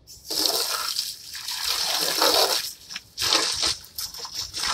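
Garden hose spraying water that splashes onto the ground and plastic chairs. It starts a moment in and surges and briefly drops several times as the stream moves.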